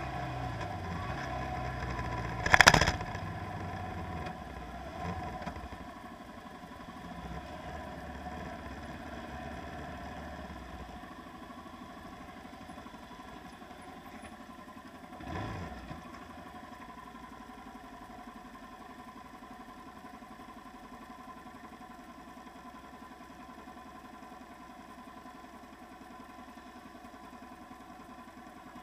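Boat engine running steadily, fading slowly, with one loud sharp knock about two and a half seconds in and a softer one around fifteen seconds.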